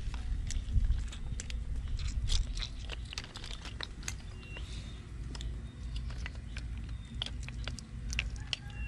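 Irregular clicks and crunches of grilled apple snail shells being handled and knocking against each other on a wire mesh as the charred crust is scraped off, over a low steady rumble.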